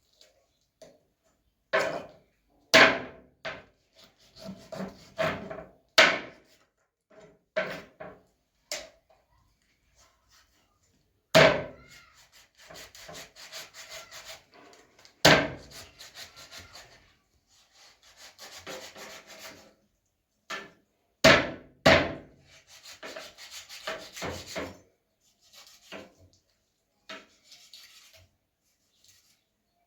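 Irregular hard knocks, a dozen or so, with stretches of scraping and rubbing between them.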